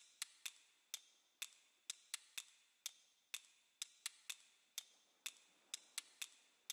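Small hard plastic LEGO pieces clicking and clacking as they are picked up and pressed onto the model: a string of sharp, uneven clicks, about three a second.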